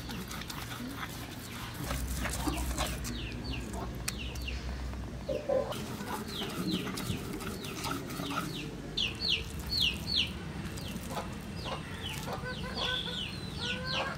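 Chickens calling, a run of short, high, falling peeps that come thicker in the second half, with a few soft knocks from leaves being ground with a blade on a wooden block.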